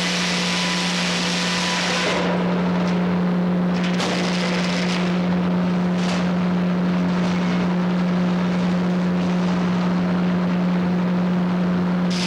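Frick 00 sawmill running at a steady speed: a constant mechanical drone with a strong, unchanging hum, and a couple of brief clicks about four and six seconds in.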